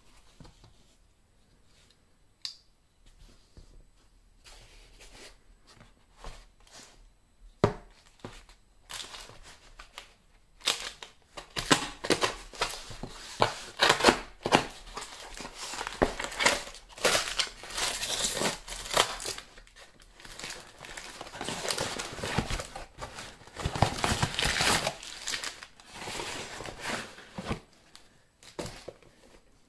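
Cardboard parcel being slit open with a folding knife and torn apart, with packing paper crumpled as it is pulled out. A few sparse clicks and rustles come first, then dense tearing and crinkling from about nine seconds in, dying away near the end.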